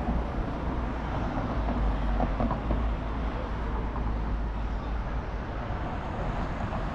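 Road traffic: cars driving past on a street, a steady mix of engine and tyre noise with a low rumble.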